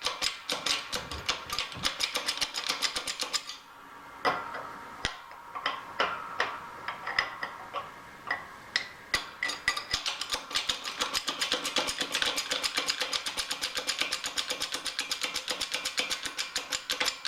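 Rapid, uneven metallic clicking from a small hand press being worked to press bearings, several clicks a second. There is a brief pause about three and a half seconds in, and the clicking grows denser in the second half.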